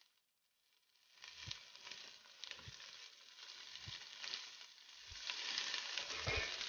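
Sliced onions and coconut pieces sizzling in hot oil in a pan while being stirred with a wooden spatula: a steady sizzle, growing louder, with soft knocks of the spatula about once a second. It starts after a second of silence.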